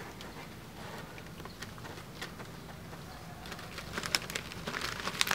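Outdoor ambience: birds calling over a steady low hum, with a run of sharp clicks and crackling in the last couple of seconds, loudest about four and five seconds in.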